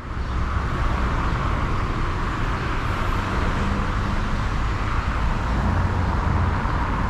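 Steady rumble and hiss of a car driving on the road.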